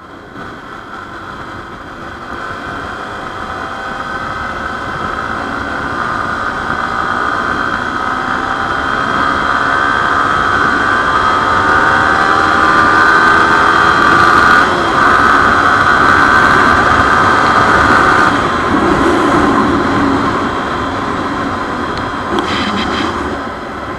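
Yamaha sport bike's engine pulling hard under acceleration, its pitch climbing, with wind rushing over the rider-mounted microphone. The sound grows steadily louder with speed for the first twelve seconds or so, holds, then eases off about three-quarters of the way through.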